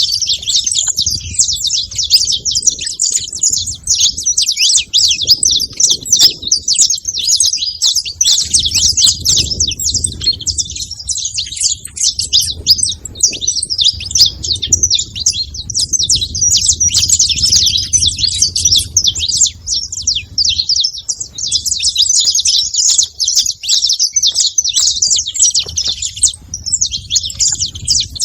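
A group of saffron finches chirping continuously in a dense, overlapping chatter of short, high calls.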